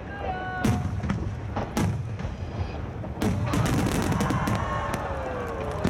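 Starmine fireworks shells bursting in quick succession, sharp reports about once or twice a second, then a dense run of crackles from about three seconds in as a large gold burst opens. A song plays underneath.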